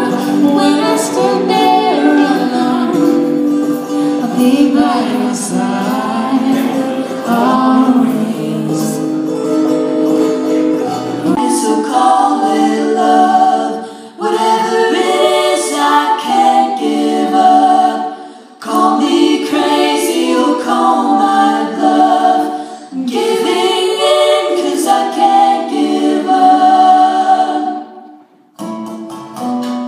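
Live music: singing over acoustic guitar. About 11 seconds in, a cut brings in female singers in close harmony, pausing briefly between phrases.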